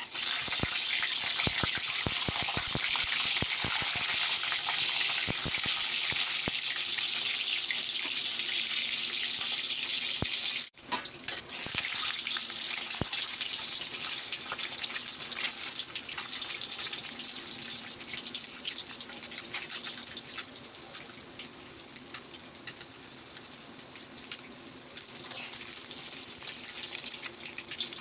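Food sizzling in hot oil in a pan: a loud hiss that starts suddenly with dense crackling and spitting, then slowly settles to a quieter sizzle before picking up again near the end.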